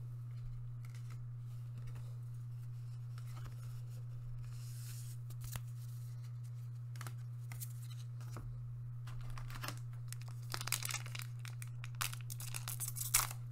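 A few faint clicks of cards being handled, then from about ten seconds in the crinkling of a foil trading-card booster pack wrapper as it is picked up and torn open. A steady low hum runs underneath.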